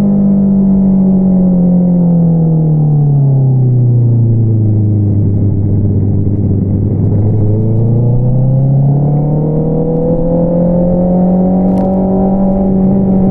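2022 Honda CBR650R's inline-four engine running through an Akrapovič single-outlet exhaust. Its pitch falls smoothly over about five seconds as the revs drop, stays low for a couple of seconds, then climbs back up as the revs rise again and holds high near the end.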